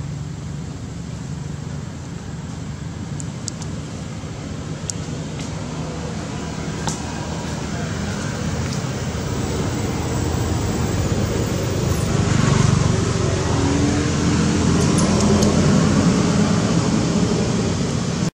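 Steady background motor-vehicle noise with a low hum, growing louder about two-thirds of the way through.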